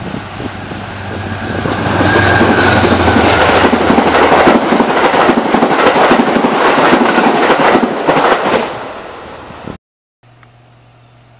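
Amtrak passenger train led by a GE Genesis diesel locomotive passing at speed: the locomotive's noise builds over the first two seconds, then the coaches rush by with rapid wheel clicks over the rail joints, fading away near the end. Cuts off abruptly about ten seconds in, followed by a quieter steady low hum.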